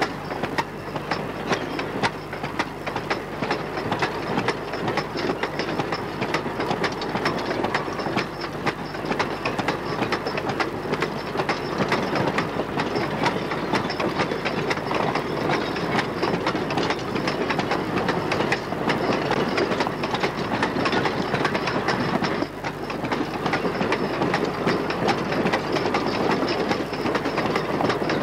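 Loaded coal hopper wagons rolling past at close range, their wheels clicking over the rail joints in a steady, fast clickety-clack over a continuous rumble and rattle.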